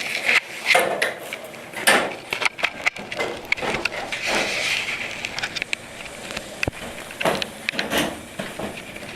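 Scattered wooden knocks, bumps and scuffs of chairs and props being moved about on a stage during a scene change.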